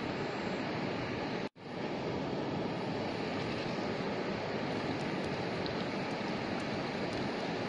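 Steady rushing of wind on the microphone and river water, broken by a sudden momentary dropout about a second and a half in.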